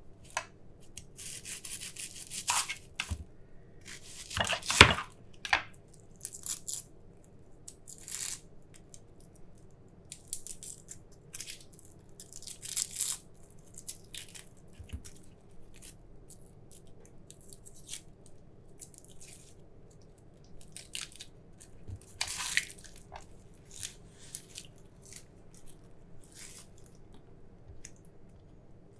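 Onion skins being peeled by hand: dry papery crackling and tearing in irregular bursts, with small clicks between them and a louder tear about five seconds in.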